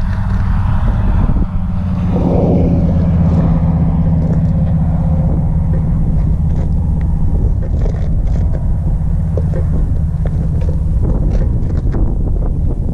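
Motorcycle engine idling steadily at a standstill. Wind noise is on the microphone for the first couple of seconds.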